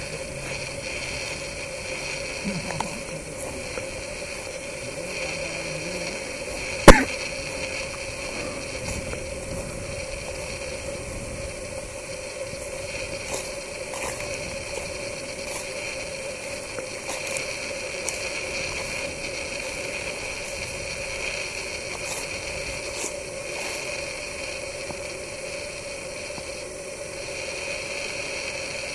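Steady outdoor evening ambience: a constant hiss-like drone with a lower hum under it, broken by one sharp, loud click about seven seconds in.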